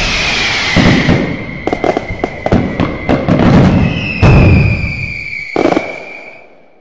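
Fireworks going off: a string of crackles and pops with louder bangs about four seconds in and again a second or so later, over a steady high whistle that fades away near the end.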